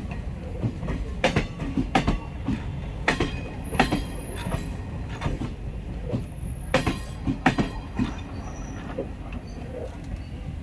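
Passenger train coaches rolling past on steel wheels: a steady low rumble with sharp clanks as the wheels cross rail joints at uneven intervals, and a faint high wheel squeal now and then.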